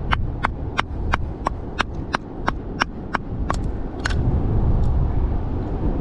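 Rusty geologist's hammer tapping on a stone nodule, about three quick sharp strikes a second, stopping about four seconds in: working the nodule open to free the ammonite inside.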